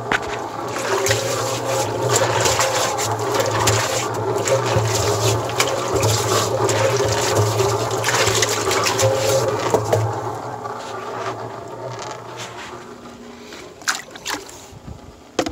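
Rinse water sloshing and churning inside a mortar mixer drum over a steady low hum. It dies down about ten seconds in, with a couple of sharp knocks near the end.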